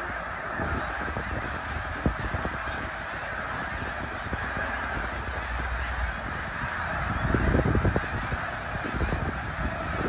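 A huge flock of snow geese honking together in a dense, continuous chorus, with a low rumble underneath that grows louder about seven seconds in.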